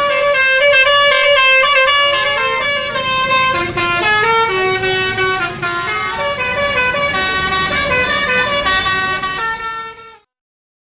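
Tour bus's basuri telolet multi-tone horn playing a quick melody of changing notes, cutting off abruptly near the end.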